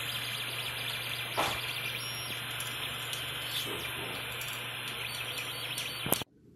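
Tevo Tornado 3D printer running mid-print, a steady hum with a couple of light clicks, cutting off suddenly near the end.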